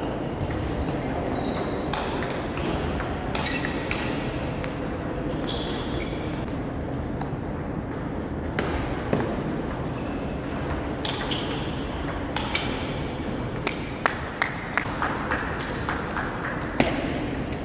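Table tennis rallies: a celluloid-type ball clicking sharply off the bats and bouncing on the table, in irregular runs of hits. A quick run of louder hits comes about fourteen seconds in.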